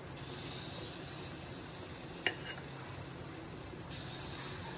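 Appam batter sizzling steadily in a hot appam pan as it is ladled into the cavities, with one light click a little over two seconds in.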